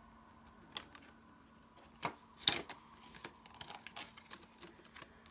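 Polymer banknotes and a binder's clear plastic pocket being handled: a few soft crinkles and small ticks, the loudest about two and a half seconds in.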